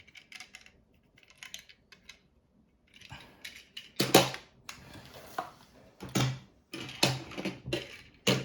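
Hard plastic toy-train pieces being handled: light clicks and taps at first, then from about three seconds in louder knocks with rustling between them.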